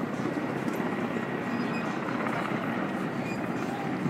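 Firefighting helicopter in flight, its rotor and engine making a steady drone.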